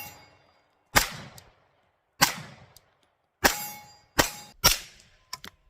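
Sharp metallic clacks of Glock 19 pistol parts, a slide and barrel, being handled and fitted together: about six irregular clacks, some with a short metallic ring.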